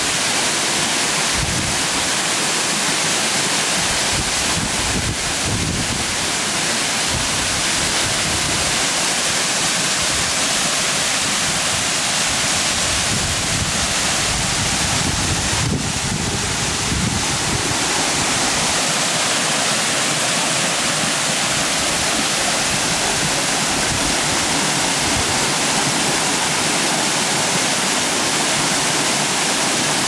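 Several waterfall streams pouring down a cliff into a shallow plunge pool, a steady, unbroken rushing of falling water.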